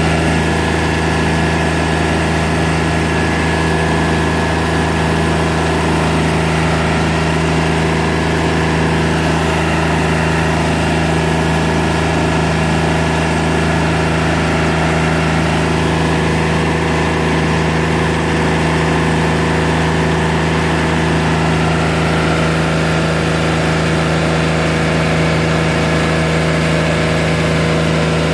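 Portable band sawmill running at a steady speed, its band blade cutting lengthwise through an English walnut log.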